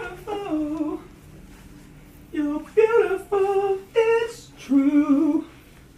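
A voice singing a series of long, wavering held notes, with short pauses between the phrases.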